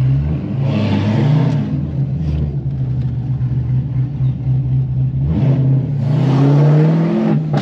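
C5 Corvette's V8 engine heard from inside the cabin while driving. The revs rise about a second in, then climb again from about five and a half seconds and drop sharply near the end as the driver changes gear.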